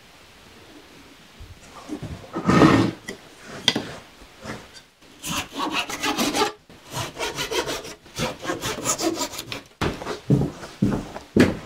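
Hand saw cutting through a thin wooden strip in quick back-and-forth strokes, about three a second, in two runs lasting around four seconds together. A few knocks of wood on wood come before and after.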